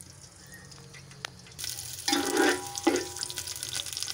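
Sliced onions frying in hot oil in a steel pot: quiet at first, then a sizzle sets in about a second and a half in. A spoon stirs them, with louder scraping sounds a little after two seconds and again near three seconds.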